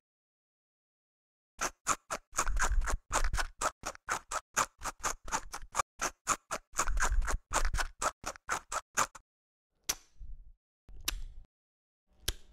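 Needle pricking and tapping at a sheet of hard, brittle dalgona sugar candy on a wooden table: a fast, irregular run of sharp clicks and small knocks, several a second, which breaks off and is followed by three separate clicks near the end.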